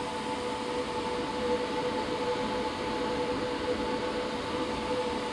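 Steady machine drone of a running water-mist midair display screen, a constant whirring haze with two unchanging hum tones, one low and one higher.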